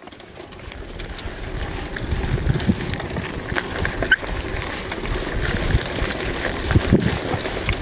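Wind buffeting the microphone over mountain bike tyres rolling on a dirt and gravel track, with frequent small clicks and rattles from the bike and stones; it fades in over the first couple of seconds.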